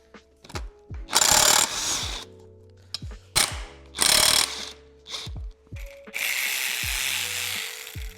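A ratchet working engine bolts loose in several short bursts, then a longer run of about two seconds near the end. Background music plays underneath.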